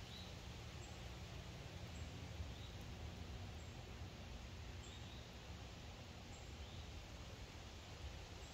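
Faint outdoor ambience: a steady low hum with a soft, high chirp repeating every second or two.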